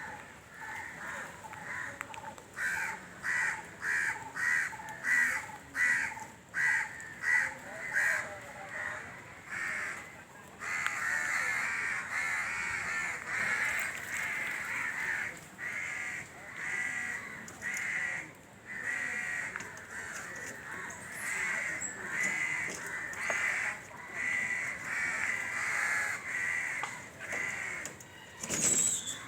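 Crows cawing: single caws about twice a second at first, then from about ten seconds in several birds calling over one another almost without a break.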